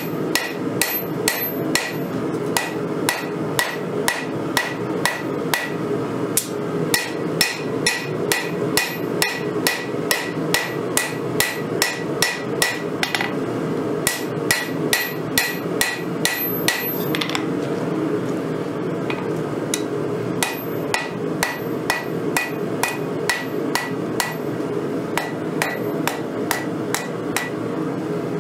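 Hand hammer drawing out a red-hot steel knife blade on a Vevor 132-pound anvil: steady blows about two a second, each with a bright metallic ring from the anvil, over a steady rushing background. The blows pause briefly a little past the middle, then resume.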